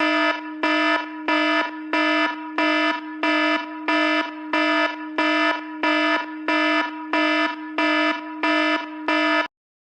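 iPhone alarm ringtone: a bright electronic chime pulsing evenly, about three pulses every two seconds, over a steady low tone. It cuts off suddenly near the end.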